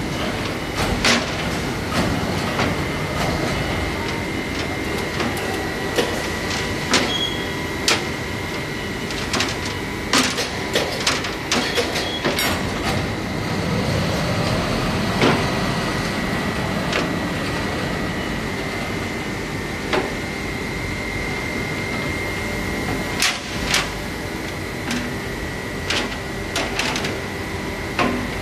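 Wire-processing machinery running as steel wire rod is pulled off a coil on a pay-off stand: a steady high whine with irregular sharp metal clanks and knocks.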